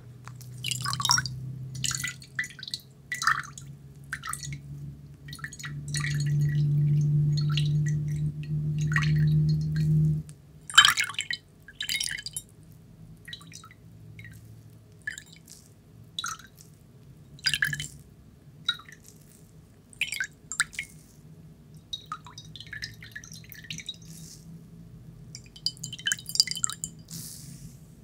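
Water dripping and splashing onto ceramic dishes in many short, separate bursts as a wet sponge is squeezed over them. A steady low hum runs underneath and grows louder for a few seconds in the first half.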